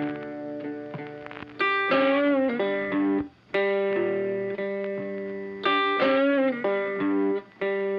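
Background music led by an electric guitar with effects, playing sustained notes with bends about two seconds in and again about six seconds in.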